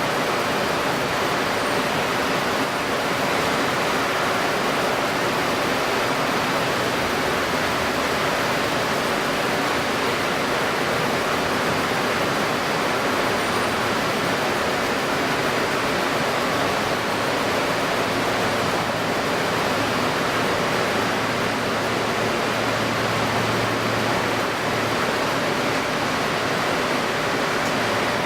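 Steady rushing noise of strong pre-typhoon wind over wind-stirred water, with no let-up. A faint low hum swells in the second half.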